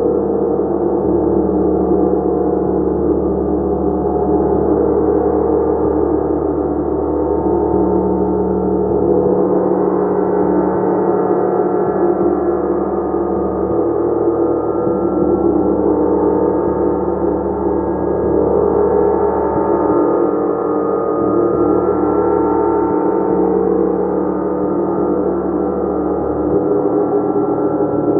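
Gong played continuously, its many overlapping tones sustained in a dense shimmering wash that swells and ebbs gently in slow waves.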